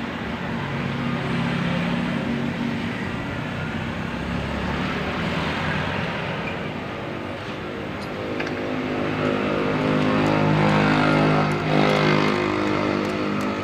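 Honda TMX 125 Alpha's single-cylinder four-stroke engine running during a tune-up, its speed shifting. It runs faster and louder from about eight seconds in, with a brief dip near the end.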